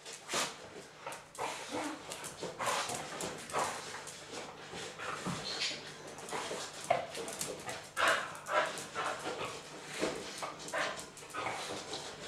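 A spitz-type dog whining and giving short yips over and over, in quick irregular bursts.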